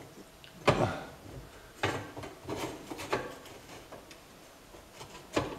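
Metal clunks from the hand-pushed feed arm of a homemade bandsaw blade sharpener advancing the blade tooth by tooth, with the arm snapping back on its return spring. There are about five knocks at uneven spacing.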